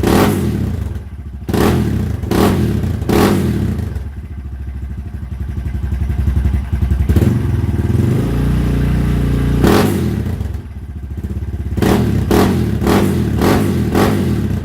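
Guerrero GXR250 engine running through a homemade exhaust, revved in a run of short, sharp throttle blips, settling to a steady run in the middle, then blipped again several times near the end.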